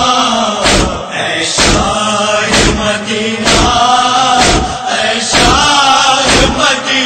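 Male voice singing a noha, an Urdu lament, in long drawn-out wavering notes over a sharp beat that falls about once a second.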